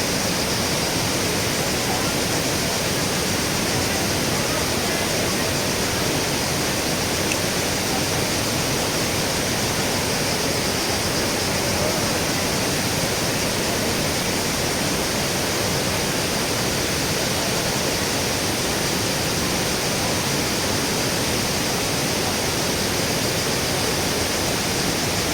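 Kravica waterfalls rushing steadily: an even, unbroken wash of falling-water noise.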